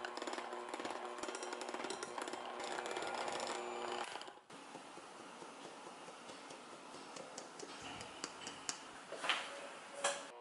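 Electric hand mixer running with its beaters in a glass bowl of creamed butter, stopping abruptly about four seconds in. Then flour is sifted through a metal mesh sieve, with light ticks and two louder knocks near the end.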